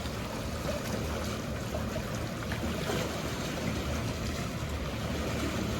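Mediterranean seaside ambience: water washing against the shore with a steady low hum of boat engines.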